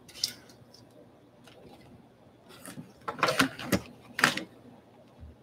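Boxes of baseball trading cards being handled and opened: a sharp click near the start, then a few short rustling, scraping bursts of cardboard and plastic packaging about three to four and a half seconds in.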